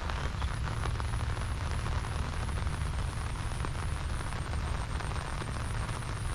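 Steady rain falling, a fine even patter with a constant low rumble underneath.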